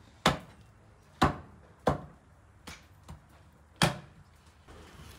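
Knife chopping on a cutting board: four sharp chops about a second apart, with two lighter knocks between the last two, stopping a little before the end.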